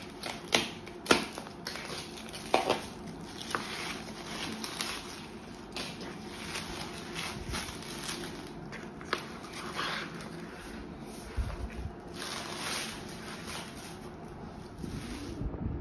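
Plastic stretch wrap crinkling and cardboard rustling as wrapped metal wall panels are handled and pulled from their box, with a few sharp clicks and snaps in the first three seconds.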